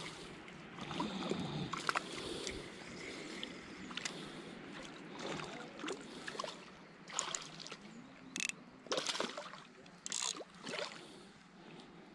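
A hooked fish splashing and thrashing at the surface while a spinning reel is wound in, with irregular water sloshes and small mechanical clicks from the reel.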